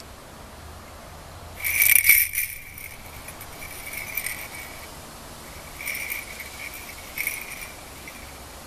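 A small jingle bell jingling in short shakes: one longer, louder jingle about two seconds in, then three shorter ones spaced over the following five seconds.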